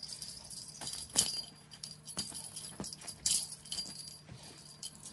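Small bell jingling in short shakes, with light knocks and taps, the sharpest about a second in and again just past three seconds, as cats play with a toy.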